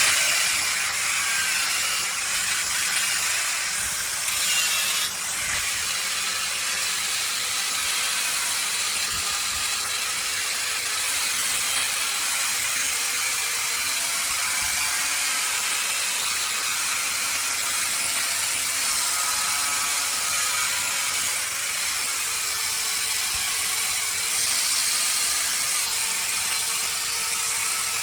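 Wood lathe running with a tool held against the spinning wood, making a steady, hissing scrape with faint whining tones underneath.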